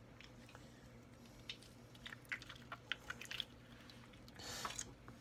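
Faint wet squelching and sticky smacks of a stress ball's slimy gel filling being squeezed and pulled apart by fingers, a quick run of small clicks in the middle, then a short hissing rush near the end.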